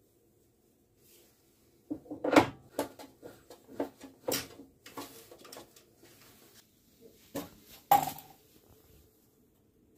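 Metal clanks and clicks of a four-jaw lathe chuck being handled and fitted onto a wood lathe's threaded spindle: a string of sharp knocks starting about two seconds in, with the loudest one soon after and another loud one near the end.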